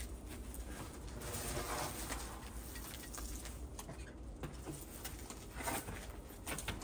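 Rustling and scattered light knocks of a loaded touring bicycle and its panniers being wheeled and handled, over a low steady rumble.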